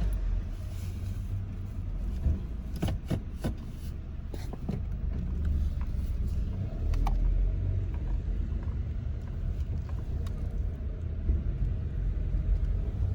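Honda Civic sedan driving, a steady low rumble of engine and road, with a few light clicks a few seconds in. No power steering whine is heard while turning, a sign the topped-up fluid has cured it for now.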